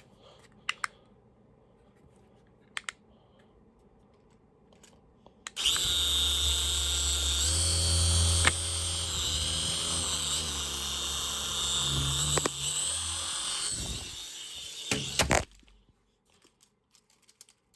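Toy UFO helicopter's small electric motor and rotor whirring in flight for about ten seconds, a high whine wavering in pitch, with a couple of sharp knocks and a clatter near the end before it cuts off.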